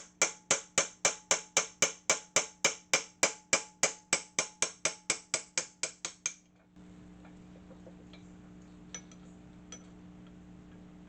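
Hammer knocking a driven-in handle out of a table saw hand wheel: light, evenly spaced ringing metal strikes, about four a second. The strikes stop about six seconds in and a steady low hum follows, with a few faint clicks.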